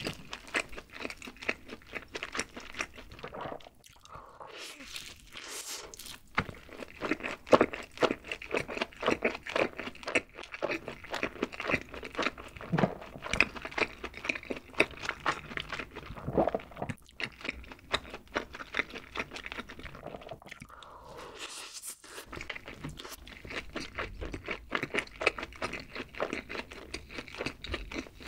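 Close-miked chewing of crunchy sauced fried chicken dipped in cheese sauce: dense, irregular crunches and wet mouth sounds, pausing briefly twice.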